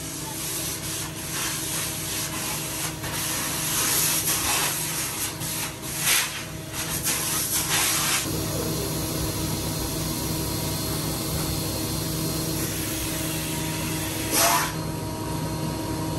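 Vacuum cleaner running with a steady motor hum as its wide floor nozzle is pushed back and forth over a rug, making rasping strokes through the first half, then running steadier.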